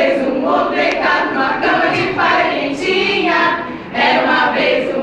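Group of women singing together, with a short break between phrases a little before four seconds in.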